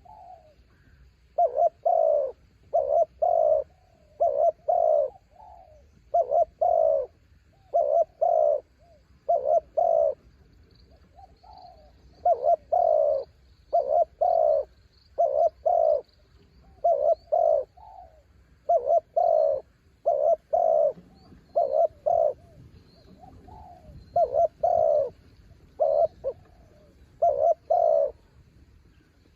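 Spotted dove cooing over and over, each phrase a quick run of two to four low, hollow notes, with a new phrase every second or two. Faint high chirping runs underneath.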